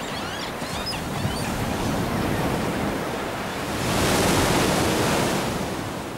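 Rough sea washing and churning past a trawler's stern in strong wind, with a wave crashing over the rail and spraying onto the deck about four seconds in, the loudest moment. A few faint seabird calls come through in the first second or so.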